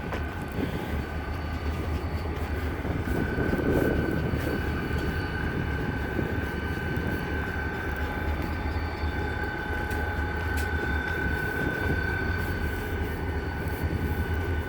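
Idling diesel locomotives: a steady low engine rumble. A steady high whine joins about two and a half seconds in and holds.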